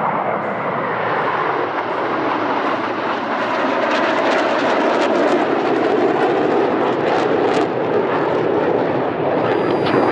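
Formation of Korean Black Eagles T-50 jet trainers flying past, their single General Electric F404 turbofans giving a loud, steady jet noise that swells over the first second or two, with crackling in the upper range midway through.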